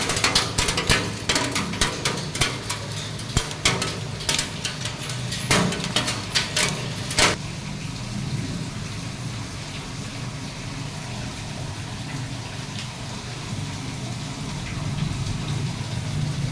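Hailstones and heavy rain striking a hard surface, a dense patter of sharp separate hits over a steady rain hiss. The hits thin out and stop about seven seconds in, leaving steady rain.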